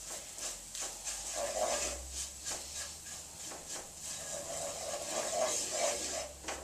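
Wooden spoon stirring and scraping a breadcrumb stuffing in a frying pan: a quick, uneven run of short scrapes.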